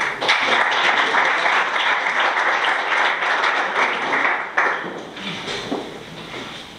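Audience applauding, starting at once, full for about four and a half seconds, then thinning out and fading away.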